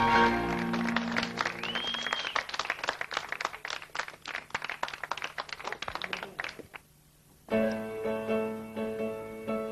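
The band's last held chord ends, then an audience applauds, with one whistle near the start of the clapping. The applause breaks off suddenly. After a brief silence, a piano begins a slow introduction.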